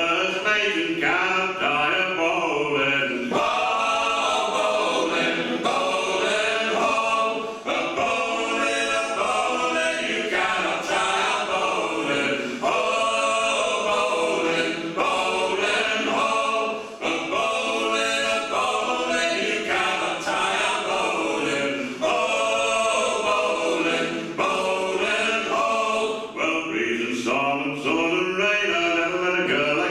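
Four men singing a folk song unaccompanied, several voices in harmony, sung continuously.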